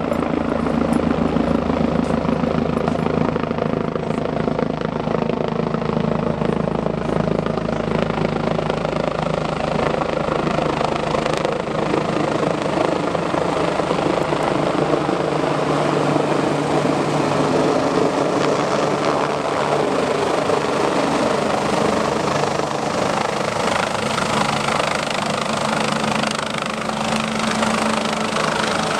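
BK 117 rescue helicopter flying low overhead, its rotor and engines running steadily throughout.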